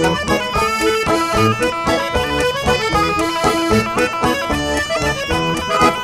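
Live folk band playing a bourrée, a traditional Auvergne dance tune: melody lines moving in steps over a steady, regular beat.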